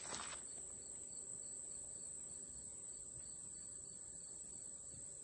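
Faint insects in summer woods: a steady high-pitched drone with a quieter chirp pulsing about four times a second that fades out in the second half. A short rustle right at the start.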